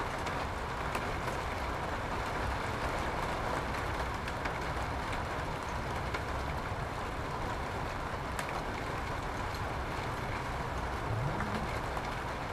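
Steady rain noise over a low background rumble, with a few faint small clicks from wiring being handled in the engine bay.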